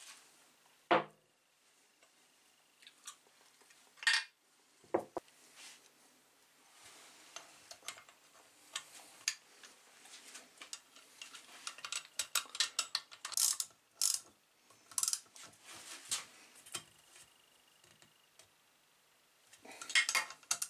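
Small engine parts being handled during reassembly of a Briggs & Stratton Quantum engine: a few sharp knocks in the first seconds, then a busier run of light metallic clicks and clinks as the connecting rod cap and its small parts are fitted onto the crankshaft in the engine block.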